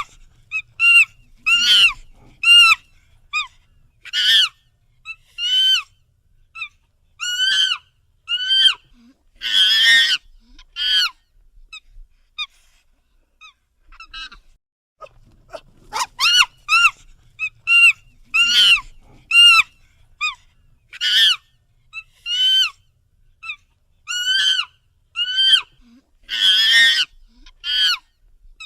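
Monkey calling in a run of short, high squeals, each rising then falling in pitch, about one to two a second, with a few harsher screeches among them. The calls stop for a few seconds about halfway through, then start again in the same pattern.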